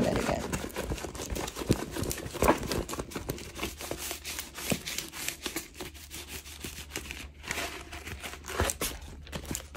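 A rolled diamond painting canvas being unrolled and handled, its stiff sheet and protective film crinkling and crackling, with a few louder snaps.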